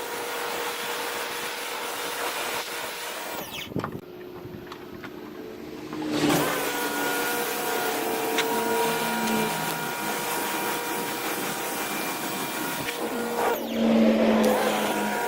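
Greenworks electric pressure washer spraying: a steady hiss of water over the motor's whine. About four seconds in the spray cuts off and the motor stops. Near six seconds it starts again with a rising whine, and it briefly dips and comes back near the end.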